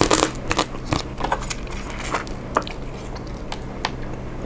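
Eating utensils clicking and clinking against a bowl of seafood noodles: a quick cluster of sharp clicks at the start, then scattered single clicks.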